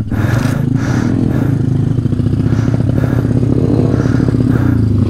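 A pit bike's single-cylinder engine idling steadily.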